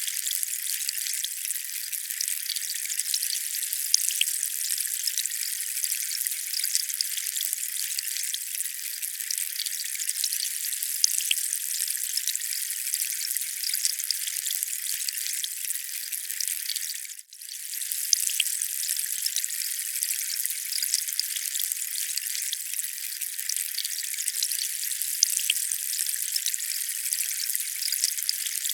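Steady hiss of falling or running water, thin and high with fine crackling ticks and no low rumble. It drops out for an instant about seventeen seconds in, then swells back.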